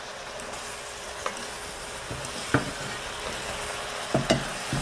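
Fried squid being tossed in a sizzling soy-chili sauce in a hot pan: a steady sizzle with a few sharp clicks of a utensil against the pan.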